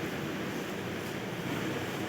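Steady machine noise: a low hum under an even hiss, with no distinct strokes or changes.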